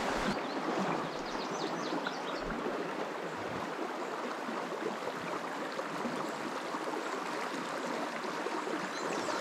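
Fast-flowing river rushing steadily, a constant even water noise.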